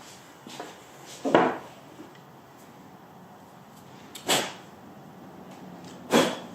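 Three short, loud handling noises over a low background hiss: the first about a second in, then roughly three seconds and two seconds apart.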